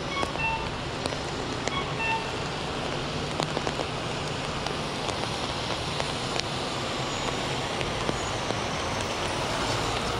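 Rain pattering on an umbrella, many small drop ticks over a steady wash of city traffic. A short two-note electronic chirp repeats twice in the first couple of seconds, and a vehicle's low rumble builds near the end.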